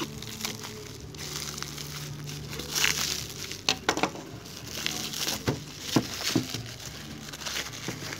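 Plastic stretch wrap crinkling and tearing as it is pulled off a hard plastic tool case, an irregular rustle with sharp crackles throughout.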